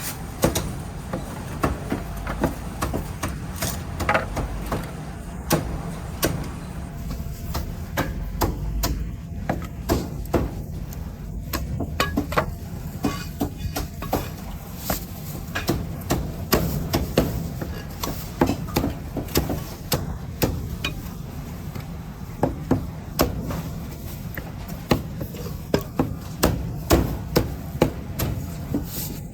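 A cleaver chopping roast meat on a wooden chopping board: sharp chops in quick runs of several a second, with short pauses between runs, over a steady low background rumble.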